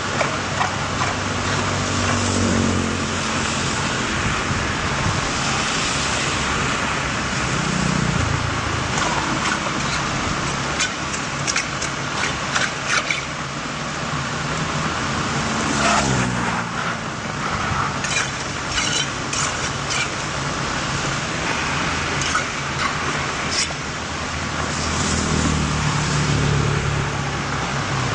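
Steady rush of rainwater flowing into a street drain, with cars passing on the wet road about four times and a scatter of sharp ticks and splashes.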